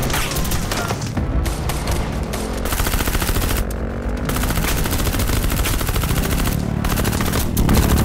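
Gunfight with rapid gunfire: shots in quick succession, with a long automatic burst of submachine-gun fire in the middle.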